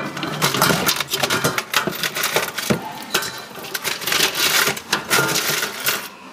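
A hand rummaging through a metal cookie tin full of bead necklaces, chains and small trinkets: a dense run of clinks, rattles and scrapes.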